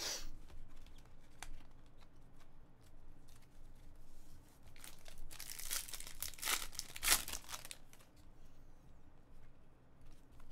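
A foil trading-card pack being torn open and crinkled in the hands, a dense crackling stretch a little past halfway that is loudest near the end of the tear. Light clicks of cards being handled come before and after.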